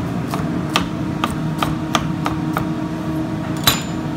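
Chef's knife dicing an onion on a plastic cutting board: about seven quick knife strikes at roughly three a second, then one sharper knock near the end.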